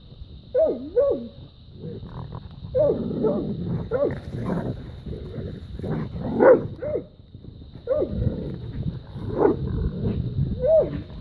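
Dogs fighting a raccoon: growling and snarling with a run of short wavering cries that rise and fall in pitch, loudest a little past the middle.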